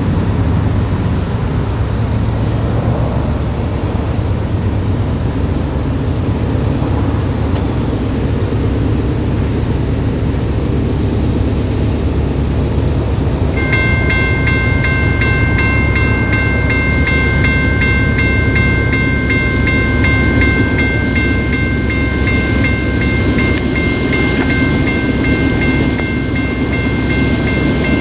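A steady low rumble, then about 14 seconds in a railroad crossing signal activates and its General Signals Type 1 electronic bell starts ringing steadily, a bright electronic ding that holds to the end, warning of an approaching train.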